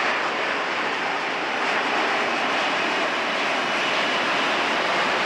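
Steady jet engine noise from an F-35B Lightning II, an even, unbroken rush without distinct pitch.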